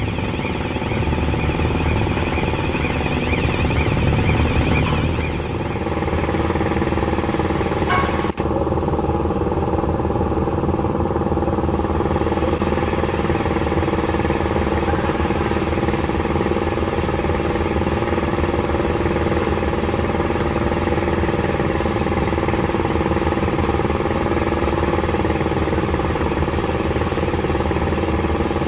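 Girder launcher's machinery running steadily: an even engine drone with steady humming tones. A wavering higher whine sits over it for the first five seconds or so, and there is a single sharp click about eight seconds in.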